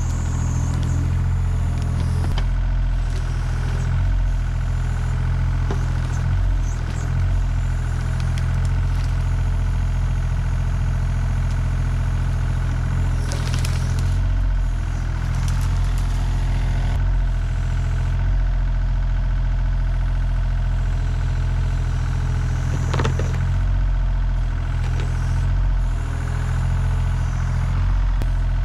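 Takeuchi TB235-2 mini excavator's diesel engine running steadily while the bucket digs around a tree stump, with a few short knocks and crackles from the bucket working at the stump and roots. The sharpest knock comes about two-thirds of the way through.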